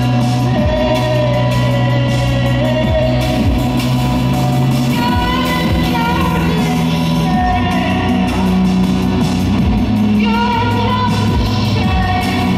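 A rock band playing live: electric guitar, steady bass notes and drum hits, with a wavering sung melody over them.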